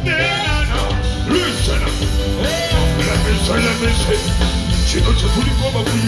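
Live music through a concert PA system: a band track with a heavy bass beat and a voice singing into the microphone over it.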